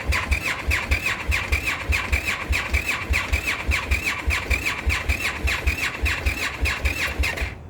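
Indian FTR's starter cranking the cold V-twin for about eight seconds without it catching: an even, rhythmic chugging over a high starter whine, which stops near the end. This is the recurring cold no-start fault, at about 36 to 40 degrees.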